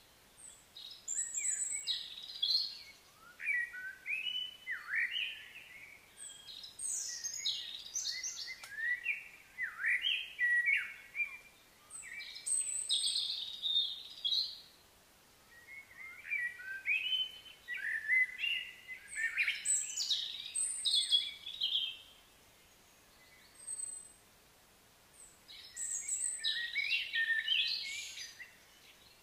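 Birds chirping and calling in quick runs of short notes that rise and fall in pitch, with quieter gaps about halfway through and again shortly before the end.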